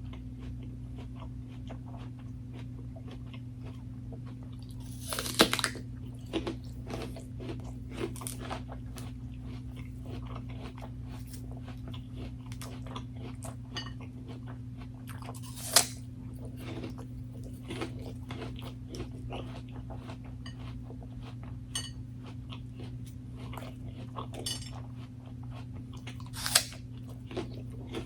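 A person biting into and chewing crisp food close to the microphone: three loud crunchy bites, about ten seconds apart, with smaller crunching chews in between.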